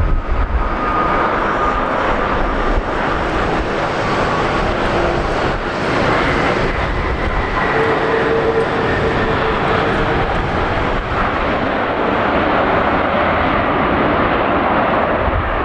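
Boeing 787-8 airliner on its landing roll, its Rolls-Royce Trent 1000 turbofan engines making a loud, steady jet rush with faint whining tones over it.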